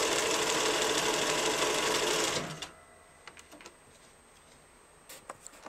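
Bernina 1090 sewing machine, badged Riccar, running steadily at speed as it stitches a decorative pattern, then stopping abruptly about two and a half seconds in. A few faint clicks follow.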